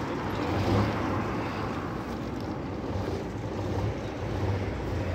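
Vintage coach's engine running with a low, steady note as the coach drives slowly past and away, swelling slightly about a second in and again near the end.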